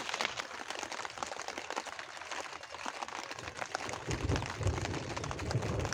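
Heavy rain falling, a dense crackling patter of drops. About four seconds in, a low rumble joins it.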